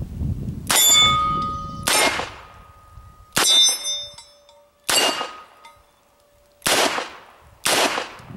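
Six double-action shots from a Smith & Wesson Model 10 .38 Special revolver, fired about a second or so apart. The first four are followed by the ringing of steel target plates being hit; the last two bring no ring.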